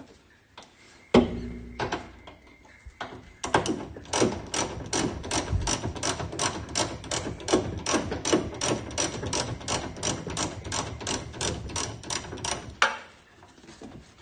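A few knocks, then a ratchet wrench clicking in a steady rhythm of about four clicks a second as a socket undoes the nut on a rear bumper bolt of a 1969 Fiat 500. The clicking stops about a second before the end.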